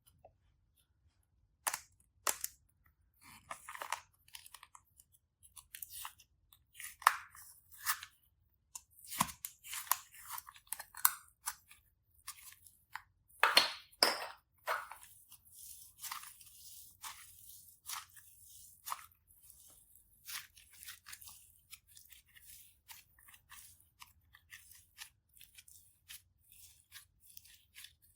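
Slime being handled and squished, giving irregular crisp crackles and small pops. They grow denser and louder about halfway through, then continue as lighter crackling.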